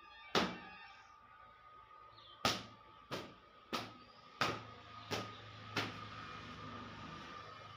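Sharp slaps of a cloth being whipped against a bicycle frame to beat off dust: one, then six more in quick succession about two and a half seconds in, over a faint steady hum.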